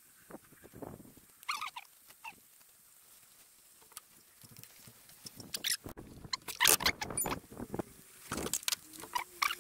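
Wooden spatula knocking and scraping in a cast-iron Dutch oven as meat and vegetables are added and stirred. There are a few scattered clicks early, then denser clattering in the second half.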